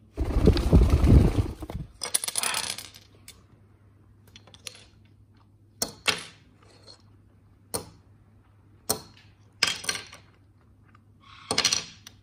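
A red parrot knocking a miniature bottle and wine glass about on a glass tabletop: a string of sharp clinks and clatters, spaced a second or so apart. It opens with a loud flurry of noise lasting about two seconds.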